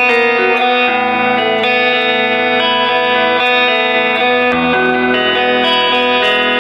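Cort G110 electric guitar with HSS pickups played through an amplifier: sustained chords and ringing notes, with the chord changing about a second in and again after about four and a half seconds.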